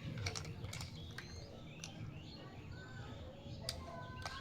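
Faint, scattered clicks and taps of small plastic toy kitchen pieces being handled, with a few short bird chirps in the background.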